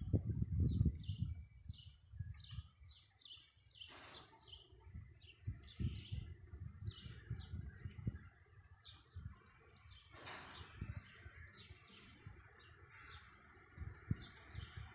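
Small birds chirping over and over in short, high notes, with irregular low rumbling on the microphone that is loudest in the first second.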